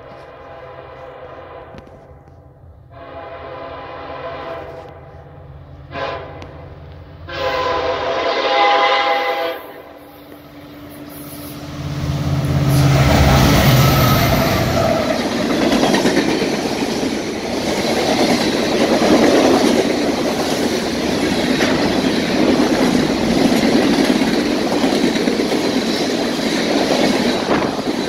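Freight train diesel locomotive horn sounding long, long, short, long, the grade-crossing signal. The Norfolk Southern locomotives then pass close by with a heavy engine rumble, followed by the steady rolling and clatter of tank cars' wheels on the rails.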